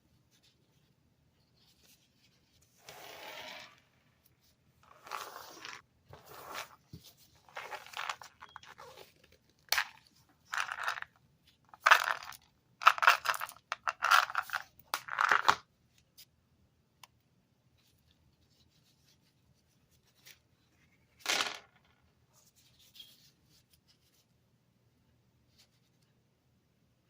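Cough-drop packaging being torn open and crinkled: a run of short tearing, rustling bursts, loudest just past the middle of the run, then one more a few seconds after it stops.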